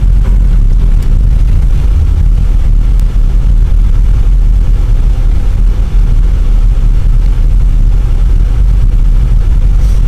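Car driving along a snow-covered road, heard from inside the cabin: a steady, loud low rumble of tyre and engine noise.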